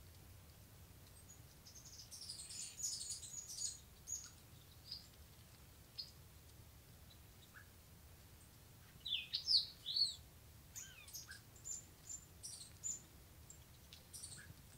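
Wild birds chirping and calling in short high notes: a quick flurry of chirps about two seconds in, a few louder calls near the middle, then scattered chirps.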